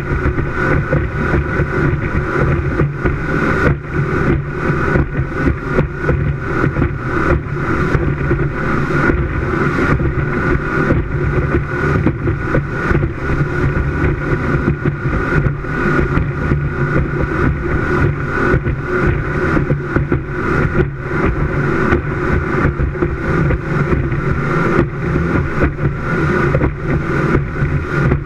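Speedboat engines running steadily at high speed, with wind buffeting the microphone in rapid gusts.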